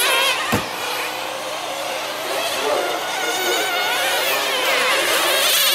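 Several nitro RC sedans' small two-stroke glow engines buzzing at high pitch, their notes rising and falling as the cars brake and accelerate around the track. A short knock comes about half a second in.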